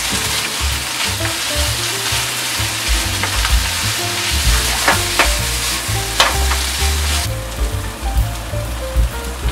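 Stir-fried vegetables sizzling in a hot nonstick pan as they are tossed with a wooden spatula, with a few sharp knocks and scrapes of the spatula against the pan. Background music with a low bass line plays underneath. Near the end the sizzle turns softer and duller as tofu pieces fry in the pan.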